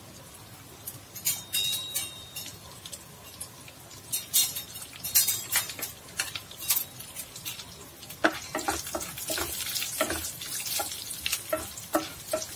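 Mustard seeds, urad and chana dal and dry red chillies sizzling and crackling in hot oil in a non-stick kadai, with sharp pops that start about a second in and come thicker near the end as a spatula stirs the pan. This is the tempering (tadka) taking: the mustard seeds starting to sound is the cue that the oil is ready for asafoetida.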